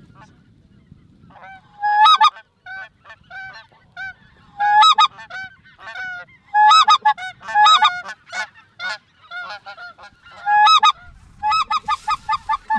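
Geese honking in a loose chorus of short, high, nasal honks, with loud clusters every second or two. Near the end they speed up into a fast, even run of honks.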